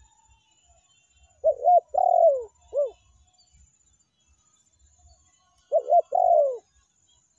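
Spotted dove cooing: two calls a few seconds apart, each a pair of quick short coos followed by a longer coo that falls in pitch. The first call ends with one more short coo.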